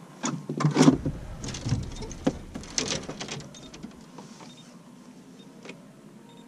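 Irregular knocks, clicks and rustling of gear being handled and people moving about on a small fishing boat, with a low bump through the hull, loudest a little under a second in and dying away after about three and a half seconds.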